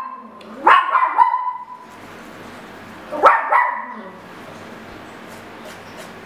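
Baby monkey giving short cries that sweep sharply up in pitch and briefly hold: two or three about a second in, and two more at about three seconds.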